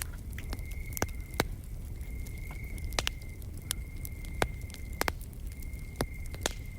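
Wood fire crackling, with sharp irregular pops every half second to second over a low rushing of the flames. An insect trills steadily on one high pitch in stretches of a second or more, with short breaks.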